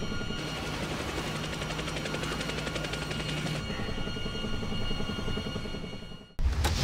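Helicopter engine and rotor drone heard from inside the cockpit, steady, with a regular rotor chop. About six seconds in it cuts off abruptly and a sudden louder low rumble takes over.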